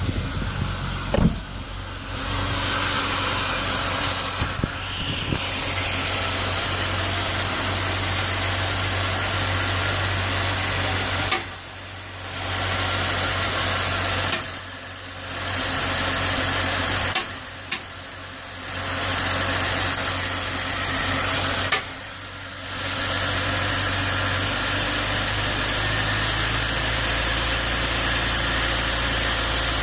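2000 BMW 530i's straight-six engine idling on a cold start, with a knocking and rumbling that the owner finds strange and cannot explain. Four times the sound drops away for about a second, each time just after a sharp click.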